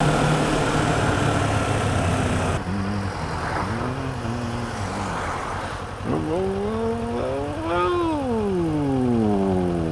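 Kawasaki ER-6f's parallel-twin engine with road and wind noise while riding. After a sudden cut the engine is quieter, then about six seconds in its revs rise and fall away again over about three seconds as the bike pulls forward in slow traffic.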